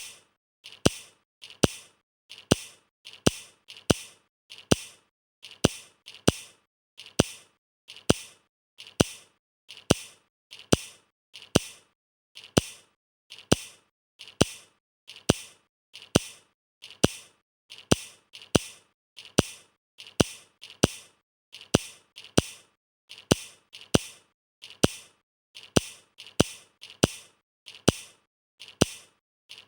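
LEGO plastic bricks clicking together, one sharp snap about every second, each a quick cluster of two or three clicks, steady and evenly spaced throughout.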